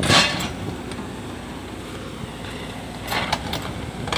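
Crawler excavator's diesel engine running steadily. There is a short loud noise right at the start and a smaller one about three seconds in.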